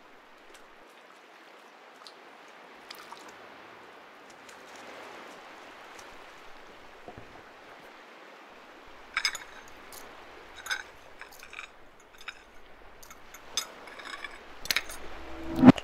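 Small waves washing steadily on a sandy shore. From about nine seconds in, a metal knife and fork clink and scrape against stones on a ceramic plate, with the loudest knock near the end.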